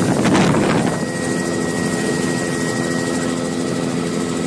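Helicopter engine and rotor noise: a loud, steady drone with a constant high whine over it, and a brief rushing burst in the first second.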